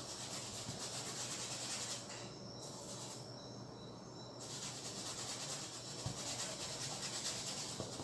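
Paintbrush scrubbing paint onto a canvas in quick, rough rubbing strokes, stopping twice briefly about two and three seconds in while the brush is lifted off.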